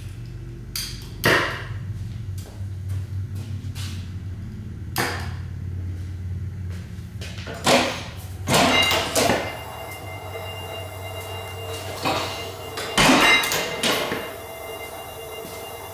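Three-quarter-scale Otto & Langen atmospheric engine reproductions, hydrogen-fuelled with open-flame ignition, being started: a few separate knocks at first, then, from about eight seconds in, louder irregular knocks and metal clatter a second or so apart as the engines begin to fire.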